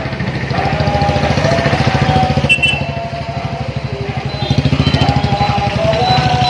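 A small motor vehicle engine running close by, a fast, even putter that gets louder about four and a half seconds in.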